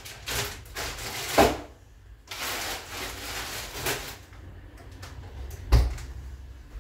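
Food packets rustling and knocking as they are stacked into a fridge-freezer's freezer compartment, then the freezer door shuts with one low thump near the end.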